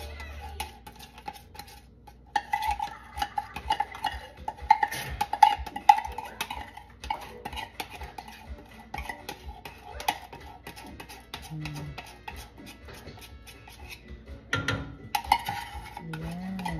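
A utensil stirring a milky mixture in a cooking pot, with frequent quick clinks and scrapes against the pot.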